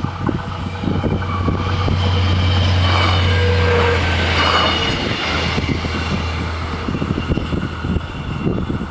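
Arriva GTW diesel-electric multiple unit passing over the level crossing: a low engine drone and rail noise build up, are loudest about halfway through, then ease off as it moves away.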